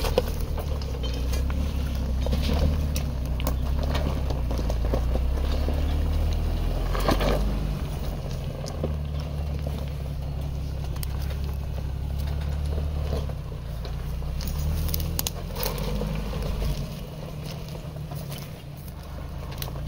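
A 4x4's engine running at low speed, its low hum rising and easing off a few times, with scattered crunches and clicks from tyres on rock and gravel.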